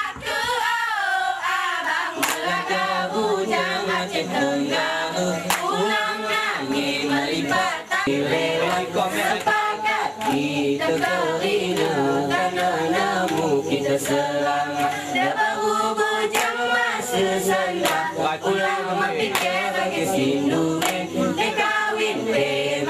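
Young Alas dancers singing a mesekat song together, unaccompanied, with sharp hand claps and slaps on the chest in time.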